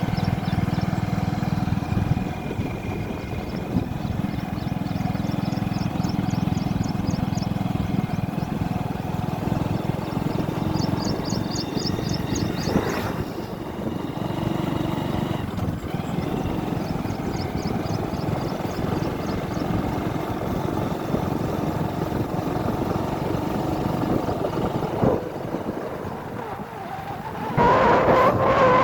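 A vehicle engine running steadily with a low rumble, with a few short runs of rapid high chirps over it. Near the end the sound grows louder and a wavering higher tone comes in.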